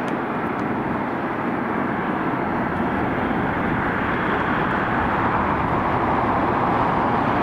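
Jet airliner engines, a steady rushing noise that grows a little louder toward the end.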